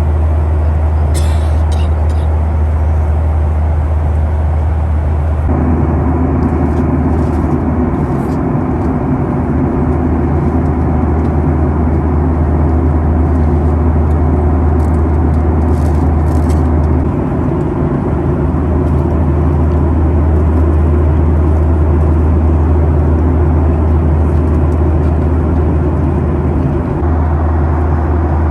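Steady in-flight cabin drone of a Boeing 737-800, its CFM56-7B engines and airflow heard from inside the cabin as a loud low hum with rushing noise. A deeper rumble comes in about five seconds in, with a few faint ticks here and there.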